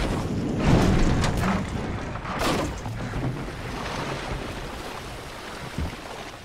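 A wooden boat's transom cracking and splintering in several sharp snaps over a wash of rushing water, the noise fading away toward the end.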